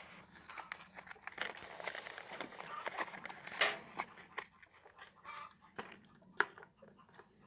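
Handling noise: cleaning cloths and plastic packaging being rubbed and rustled, with scattered light clicks and taps.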